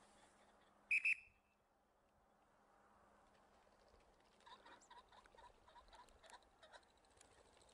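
Ring-necked pheasant calls: a loud, short two-note crow about a second in, then a run of quieter, evenly spaced clucking notes a few seconds later.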